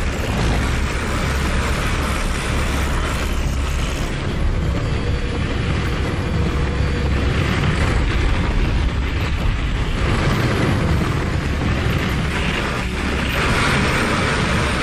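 Ride-film sound effects of a sled speeding down a snowy track: a steady, loud rushing noise with a deep rumble underneath, swelling a little near the end.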